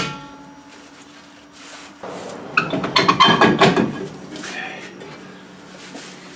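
Rear brake drum of a 1999 Toyota Tacoma being worked loose by hand: a sharp knock at the start with a short metallic ring, then loud scraping and rattling of metal for about two seconds as the drum comes off over the brake shoes and hub.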